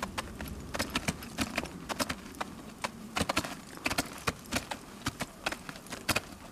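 Several climbers downclimbing a steep glacier snow slope facing inward, their boots kicking steps and ice axes striking into firm snow: irregular sharp crunching strikes, several a second, overlapping from different climbers.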